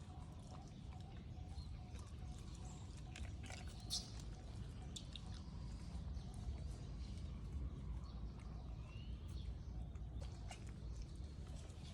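Low outdoor background noise with scattered small clicks and rustles, the sharpest about four seconds in, and a short rising chirp about nine seconds in.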